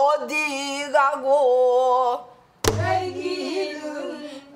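A woman singing a line of pansori in a wavering, ornamented voice for about two seconds. A single stroke on a buk barrel drum follows, and then the phrase is sung again at a lower pitch, apparently by the learners answering her.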